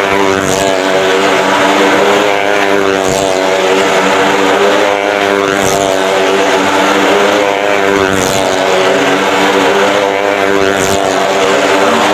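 Motorcycle engine running at steady high revs inside the wooden drum of a well-of-death ride. A brief whoosh rises about every two and a half seconds as the bike circles the wall.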